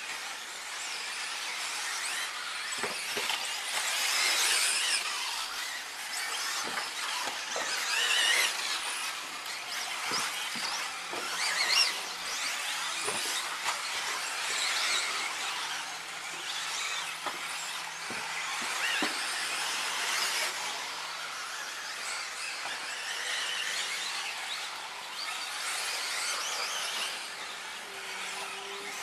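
High-pitched whine of 1/10-scale 2WD electric off-road RC buggies racing on a dirt track, rising and fading every few seconds as the cars pass, with scattered short knocks from the cars over the track.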